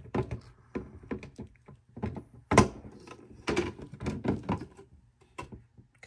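Hard plastic knocks and thunks as a humidifier's plastic water tank is handled and seated on its base, the loudest clunk about two and a half seconds in.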